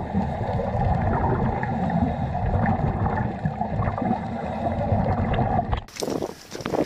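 Underwater rumble and gurgling of water and scuba divers' exhaled bubbles picked up by a submerged camera. About six seconds in it cuts off abruptly to a thinner open-air hiss with a few sharp clicks.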